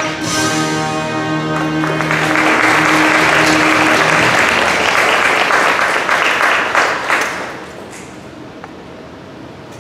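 Music ends on a long held chord about four seconds in, while an audience applauds, starting about two seconds in and dying away after about seven and a half seconds.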